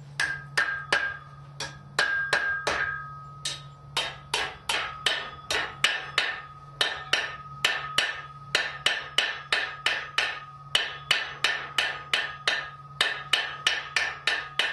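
Hand hammer striking a 3/8-inch mild steel rod on an anvil to straighten it, a steady run of about three blows a second with a brief pause about four seconds in. Each blow rings.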